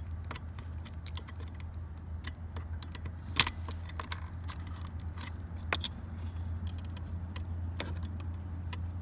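A key jangling and clicking against a plastic automotive fuse box as it is used to pry out a fuse, with scattered sharp plastic clicks; the loudest comes about three and a half seconds in. A steady low hum runs underneath.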